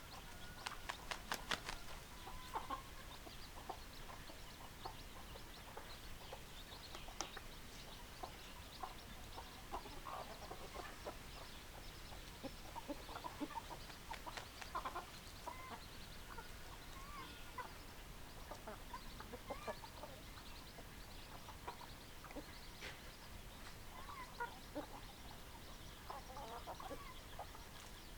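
Domestic hens clucking, with short calls scattered throughout and a few sharp clicks about a second in.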